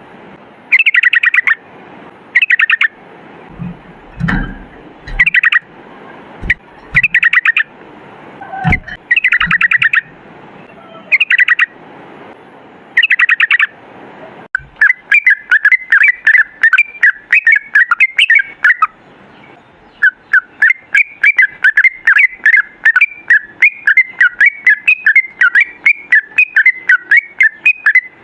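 Yellow-vented bulbul (trucukan) singing. For about the first half it gives short, bubbly phrases roughly once a second, with a few low thumps between them. Then it breaks into a long, rapid run of short notes, several a second: the continuous "ropel" song.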